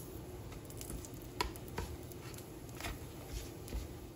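Bacon sizzling faintly in a nonstick frying pan as a spatula turns the strips, with a few light clicks of the spatula against the pan.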